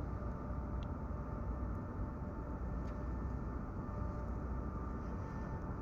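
Steady low rumble with a faint, even hum of a few steady tones, from machinery running in the background, and a couple of faint ticks.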